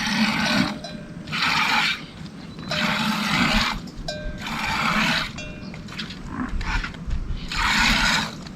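A series of rasping, scraping strokes, each under a second long, about one a second with a longer pause before the last.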